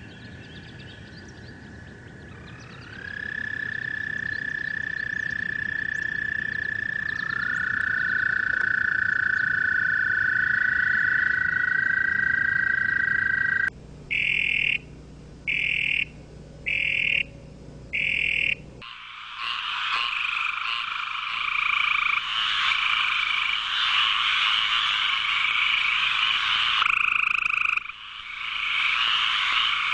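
Toads trilling: long, steady, overlapping trills held for several seconds each, then five short calls with gaps between them about halfway through, followed by a dense chorus of many frogs calling at once.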